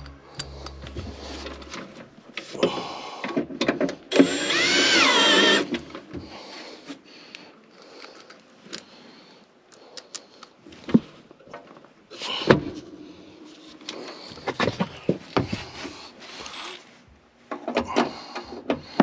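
Milwaukee cordless drill/driver driving screws in short runs: one longer run about four seconds in with a motor whine that rises and holds, and shorter runs before and near the end. Sharp knocks and clinks of metal handling fall between the runs.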